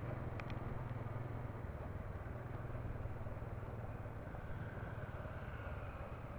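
Steady city street traffic, mostly motorbike and car engines and road noise with a low hum, heard from within the traffic; two brief high ticks about half a second in.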